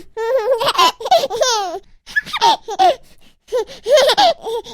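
A baby laughing: quick runs of high-pitched giggles and squeals, with a short lull about halfway through before another burst of laughter.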